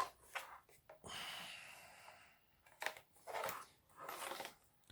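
Faint rustling and handling noises: a longer rustle lasting over a second about a second in, with several short scuffs and taps around it.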